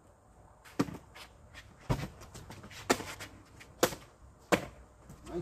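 Kicks landing on a handheld kick paddle and kick shield: five sharp slaps about a second apart, with softer smacks and foot shuffles between them.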